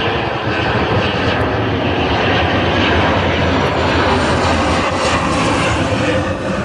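Jet airliner's engines on landing approach, a loud continuous rush with a deep low rumble that eases slightly near the end.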